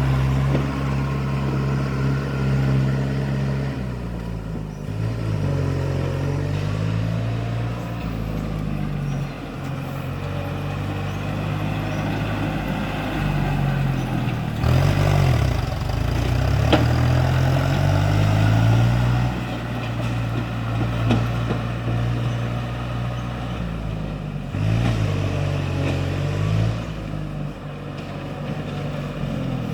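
Kubota MU5702 tractor's diesel engine running, its speed dropping and picking back up several times as it works. A sharp knock sounds about halfway through.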